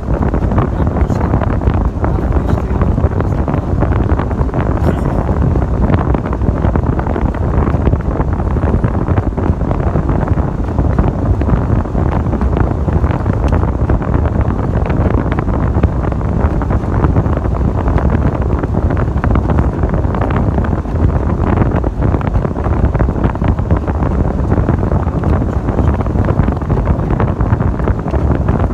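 Steady wind rushing in through an open window of a moving truck, buffeting the microphone over a low drone of road and engine noise.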